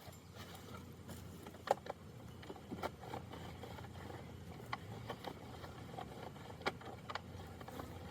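Plastic toy garbage truck being handled, its parts giving light scattered clicks and knocks a second or two apart over a low steady hum.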